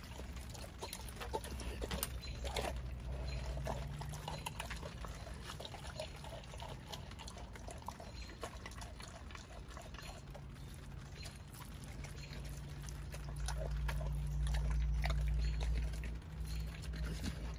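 A pit bull chewing and tearing at a whole raw chicken: wet smacking and licking with irregular crunches and clicks of bone. A low steady hum swells about thirteen seconds in and fades near the end.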